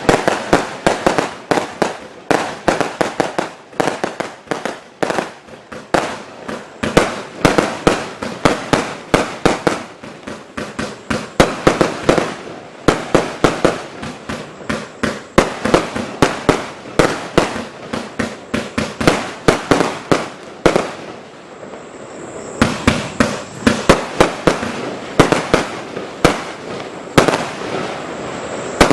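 A 189-shot firework barrage (compound cake) firing: a rapid, continuous string of sharp bangs and cracks, several a second, growing denser and louder near the end over a rising hiss.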